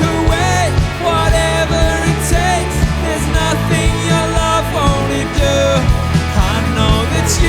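Contemporary worship song played by a full band, steady bass and drums under a melody line that slides between notes, with no words clearly sung.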